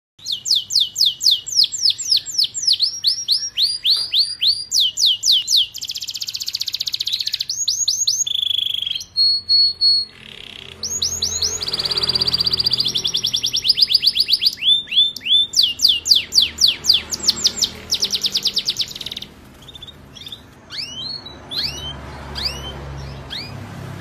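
Canary singing: fast trills of repeated high, downward-sweeping notes and a buzzy rolled passage, turning to sparser single chirps in the last few seconds.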